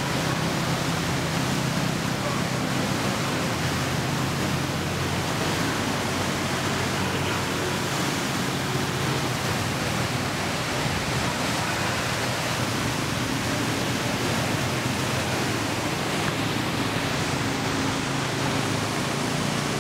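Heavy monsoon rain falling steadily on a flooded street and trees, an even, unbroken hiss with a low hum underneath.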